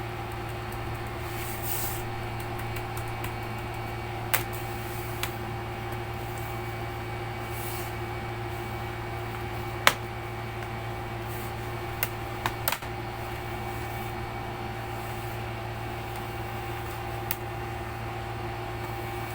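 Steady low machine hum with a handful of sharp clicks scattered through it, the loudest about ten seconds in and a close cluster around twelve seconds.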